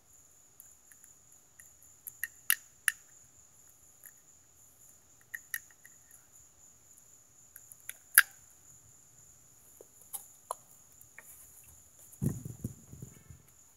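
Scattered sharp clicks and taps of a phone camera being handled and rubbed against clothing, with a short low rumbling knock near the end as it is moved. A faint steady high whine runs underneath.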